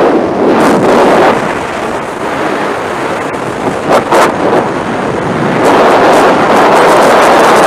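Rushing wind of skydiving freefall blasting over a body-worn camera's microphone, with sharp gusts about four seconds in, growing louder near the end.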